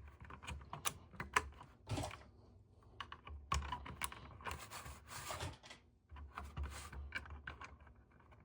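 Small plastic LEGO pieces clicking and clattering in irregular, quick taps as they are picked through, handled and pressed together.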